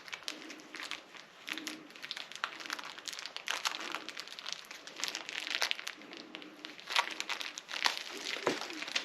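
Plastic bag crinkling and rustling in irregular bursts, with small sharp clicks, as a bag of small mounting screws is rummaged through.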